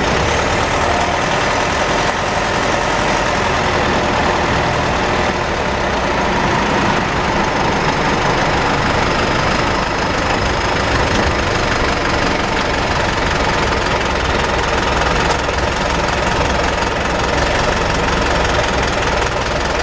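Mitsubishi 4N15 diesel vehicle running, heard inside the cabin, with a steady high-pitched whine over the engine and drivetrain noise. The owner later found the differential and transmission fluid levels wrong and believes the drivetrain is damaged.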